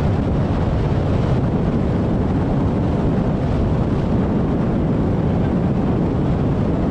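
Open fishing boat running at speed: a steady rush of wind on the microphone mixed with the outboard motor and water along the hull.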